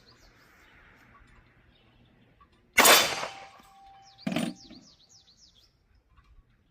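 A single pistol shot from a Glock 42 in .380 about three seconds in, followed by a quieter thump about a second and a half later. Birds chirp in the background.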